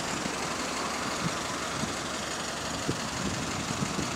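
A London single-deck bus's engine idling at a stop, a steady mechanical run under wet street noise, with a few faint short knocks in the second half.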